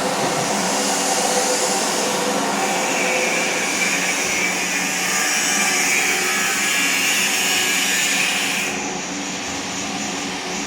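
Niigata universal milling machine running, a steady geared mechanical hum with a higher whine over it that drops away about nine seconds in.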